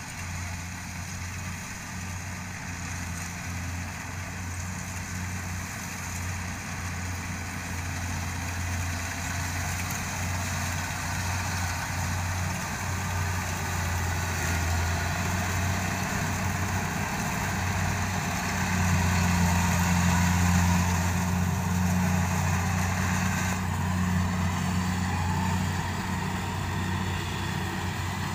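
Kubota DC70 rice combine harvester running steadily as it works through the crop, a low engine hum that grows louder as the machine draws near, is loudest about two-thirds of the way through, then eases slightly.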